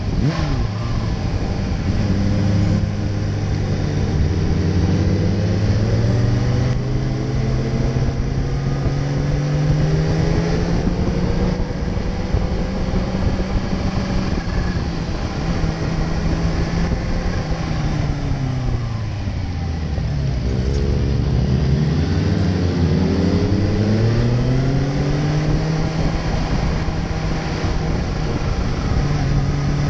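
Kawasaki sport motorcycle's engine running under way, its pitch climbing over the first several seconds, holding, dropping low about two-thirds of the way through as the bike slows, then climbing again as it speeds up. Steady wind and road noise runs underneath.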